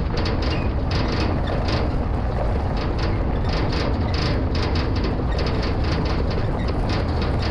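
Diesel engine of a piece of heavy farm equipment running steadily under way, with frequent irregular metallic rattles and clanks over the engine hum.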